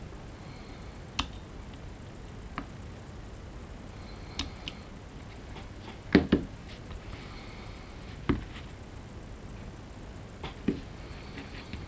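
Small clicks and taps of metal pliers and a KJW KC-02 trigger housing being handled on a chipboard bench: scattered light clicks, a louder double knock about six seconds in, and single knocks about two and four seconds after that, over steady background hiss.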